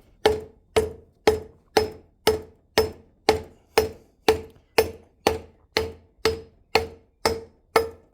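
Rubber mallet tapping a new interference-fit part into a tight bore, with steady, even blows about two a second and a short metallic ring after each.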